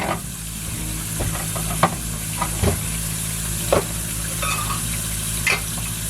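Water running from an open camper faucet with a steady hiss, over the steady hum of the camper's water pump. A few light knocks and clatters are scattered through.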